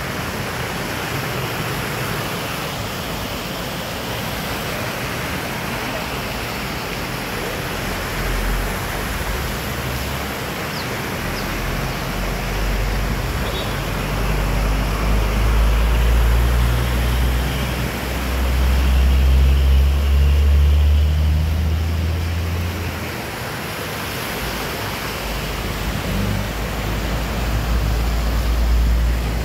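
Muddy floodwater welling up from underground and running across a tarmac road, a steady rush of water. Vehicles drive through the flooded lane, and a deep rumble swells about twelve seconds in and again near the end.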